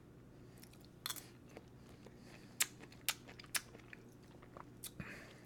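A person eating grapefruit from a grapefruit spoon: soft chewing and mouth sounds with a few sharp clicks.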